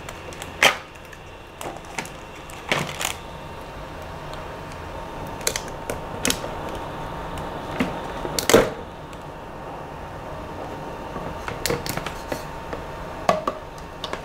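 Irregular clicks, knocks and short scrapes as resin prints are scraped off a resin 3D printer's build plate over a plastic tub, the loudest knock about halfway through.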